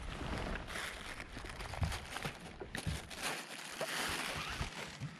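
Small waves lapping and sloshing against the hull of a small fishing boat, with a few light knocks scattered through.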